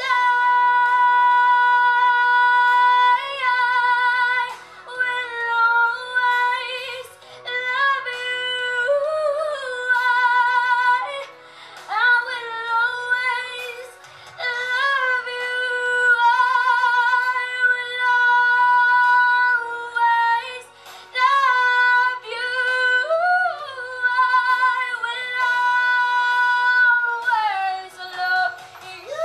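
A young girl singing solo into a microphone over a karaoke backing track, holding long notes with vibrato and breaking between phrases.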